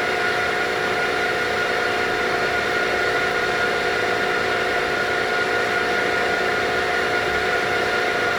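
CNC spindle motor driven by a VFD, running steadily with an even whine and several fixed tones. It was commanded to 500 RPM but is spinning much faster, because the Acorn controller's analog output is sending almost twice the expected voltage to the VFD.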